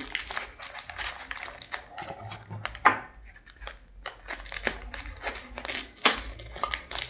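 Plastic packing material crinkling irregularly as hands handle it and pull it out of a cardboard box.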